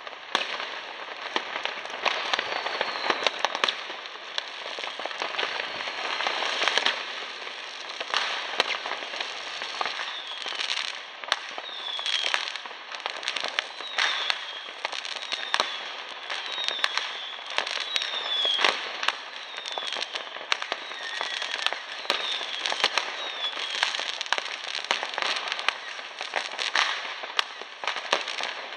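Fireworks: a dense, continuous crackle of firecrackers and rockets with many sharp bangs. From about ten seconds in, a short falling whistle repeats roughly once a second.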